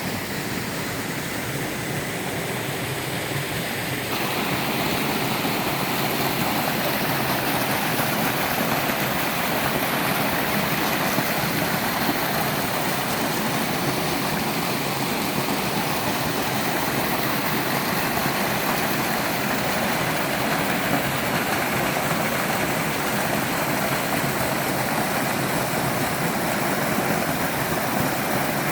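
Waterfall cascading into a mountain stream: a steady rush of falling water that gets a little louder about four seconds in.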